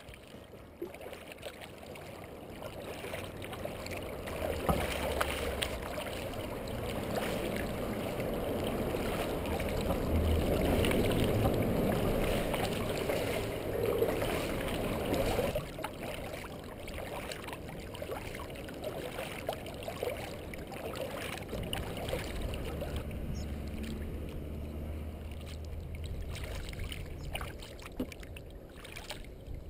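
Kayak paddling on calm water: paddle blades dipping and splashing, water rushing along the hull, with small knocks and drips. It is louder for the first half, then eases off about halfway through.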